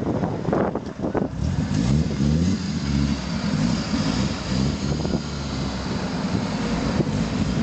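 Fiat Marea's engine running through a twin-pipe exhaust: a loud, low rumble whose pitch wavers a little.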